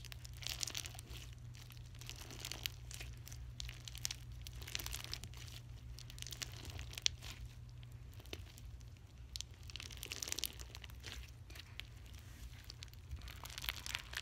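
Slime packed with small plastic beads being squished, folded and kneaded in the hands: a continuous run of small crackling clicks and pops.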